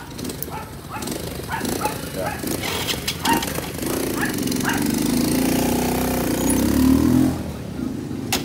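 An engine running, louder from about four seconds in and dropping away suddenly about seven seconds in.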